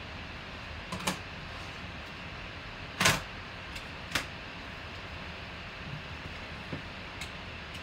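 Plastic card sleeve and rigid top loader being handled with gloved hands: a few short plastic clicks and taps, the loudest about three seconds in, over a steady hiss.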